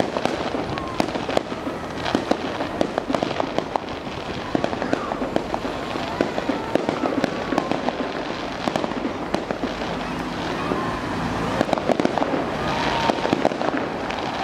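Fireworks crackling and popping: a dense, irregular run of sharp pops from glittering gold aerial bursts.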